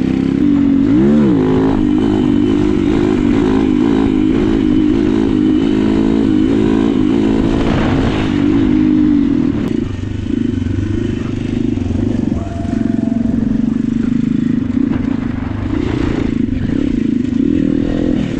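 Honda GX270 single-cylinder four-stroke engine of a go-kart running under way, its pitch rising and falling with the throttle, with a quick rev up and back down about a second in.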